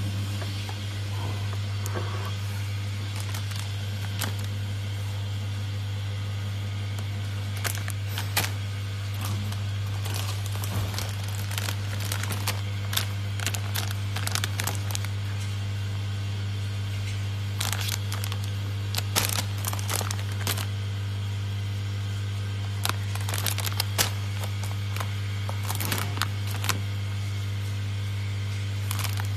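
Steady low hum of packing machinery running, with scattered sharp crackles and clicks of filled plastic pouches being handled and set down.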